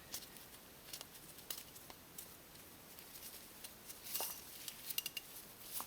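Faint, scattered small clicks and light scuffing of hands working a small oiled rubber O-ring onto the end of an oil filter housing part, with a few quicker ticks near the end.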